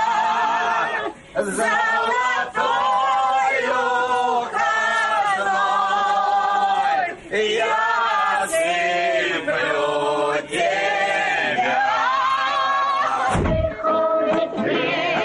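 A group of men and women singing a song together in chorus around a table. Near the end there is a brief low thump, and then singing with a strummed acoustic guitar begins.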